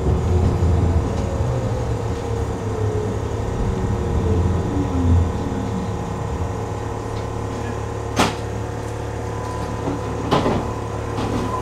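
Inside an electric tram as it brakes to a stop: a whine from the motors falls steadily in pitch over a constant low hum. Two sharp knocks come about eight and ten seconds in.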